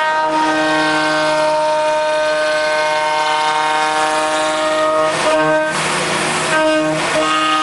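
CNC router spindle running at speed, a steady whine made of several even tones, as the router bit cuts a wooden board. The cutting noise swells into two harsher rasping stretches about five and six seconds in.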